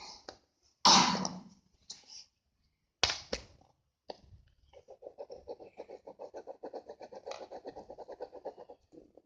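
A cough about a second in and a sharp tap, then a pencil scribbling back and forth on paper, colouring in, in a fast even run of about nine strokes a second for some four seconds.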